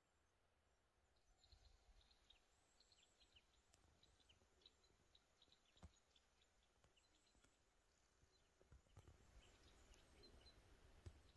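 Near silence in woodland, with faint, scattered high chirps of small birds calling and a single faint click about six seconds in.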